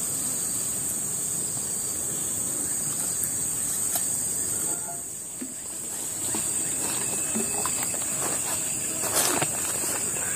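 Insects droning in a steady, high, even buzz, with a few faint clicks and knocks about four and nine seconds in.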